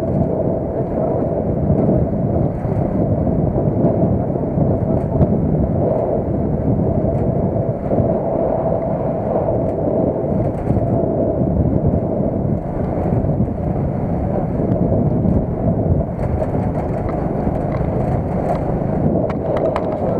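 A vehicle in motion, a steady mix of engine and road noise with a constant hum.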